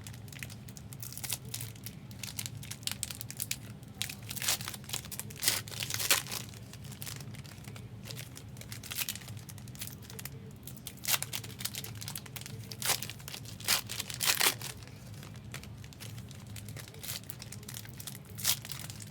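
Foil trading card pack wrappers crinkling and tearing as packs are opened and cards are handled. The rustles come in irregular bursts, a few of them loud, over a steady low hum.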